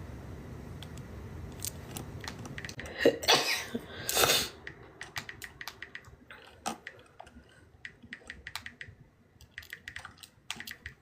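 A woman sneezing: a short gasping intake about three seconds in, then a sharp sneeze about a second later, followed by faint rustling and small clicks.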